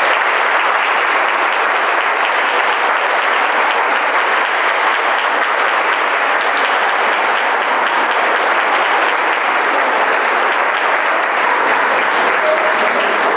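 Audience applauding, a long, even round of clapping.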